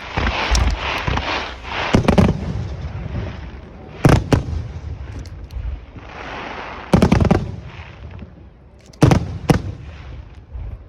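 Aerial fireworks shells bursting: a string of sharp booms, some in quick pairs, with crackling and a low rumbling echo between them.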